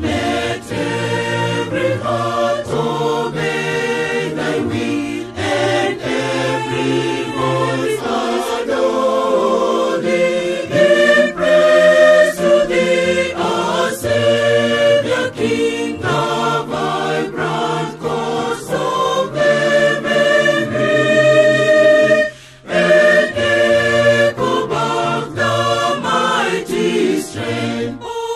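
Mixed church choir of women and men singing a hymn in parts, with a brief break about 22 seconds in.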